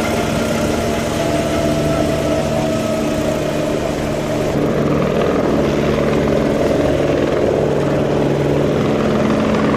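Helicopter running on the ground with its rotor turning: a loud, steady hum with a higher whine that sinks slightly in pitch over the first few seconds.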